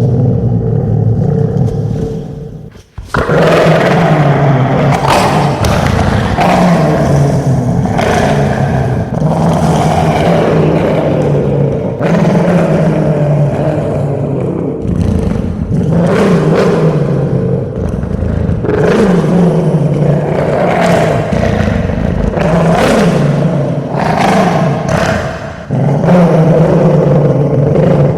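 Dogo Argentino growling: long, low growls one after another, each a few seconds long with brief breaks between them, and a short gap about three seconds in.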